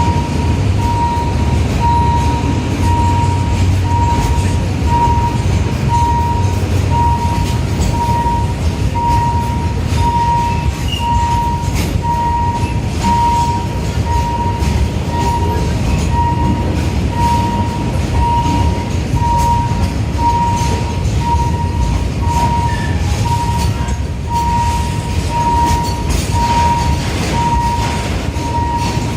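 State Railway of Thailand passenger train running through a street level crossing, a heavy steady rumble of wheels and carriages. Over it a single-pitched warning beep repeats about twice a second.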